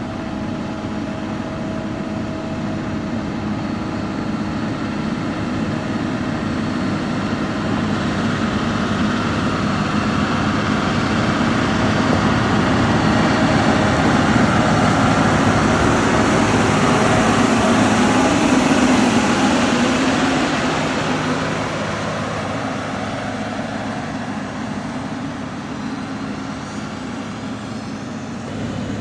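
Heavy diesel engine of a motor grader running, growing louder to a peak a little past the middle, then fading somewhat.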